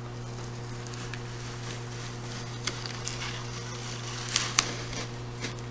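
Masking tape being peeled slowly off watercolor paper: a few soft crackles and rustles, a couple of them louder about three-quarters of the way through, over a steady low hum.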